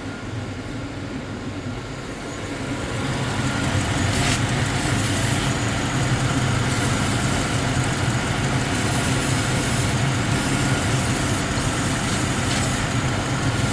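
1999 GMC Sierra V8 idling steadily with a misfire on cylinder 8, caused by a leaking intake manifold. The running sound grows louder about three seconds in and then holds steady.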